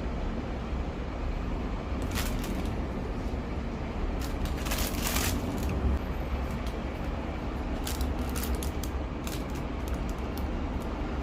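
Steady low rumble under scattered crinkles and clicks of food packaging being handled, densest about halfway through.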